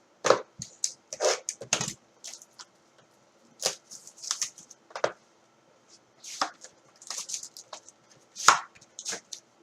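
Irregular short taps, scrapes and rustles of a trading card box and its cards being opened and handled on a table.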